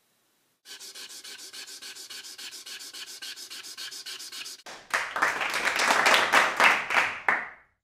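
Broad black marker scribbling on paper, rapid back-and-forth rubbing strokes filling in a dark area. The strokes grow louder and harsher about five seconds in, then stop just before the end.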